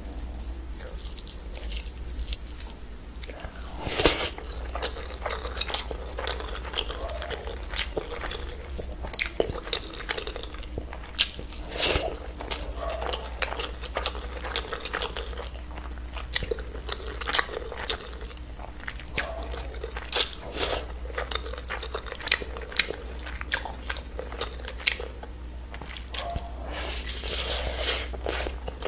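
Close-miked eating of chicken curry with rice by hand: wet mouth smacks, chewing and bites in many short, sharp clicks, with the squish of fingers mixing rice into the curry. The loudest smacks come about four seconds in and again near twelve seconds.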